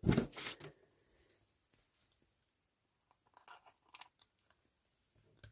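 Metal hole-punch and eyelet-setting pliers and a paper tag being handled on a craft mat: a loud, short crunchy clack at the start, then a few light clicks and paper rustles about three to four seconds in.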